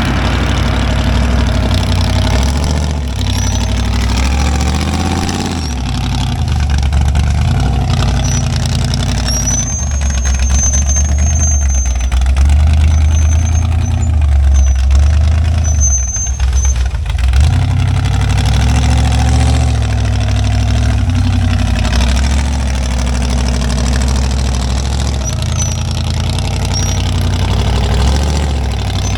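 Off-road rig's engine running steadily at low revs while rock crawling. A thin high squeak comes and goes near the middle.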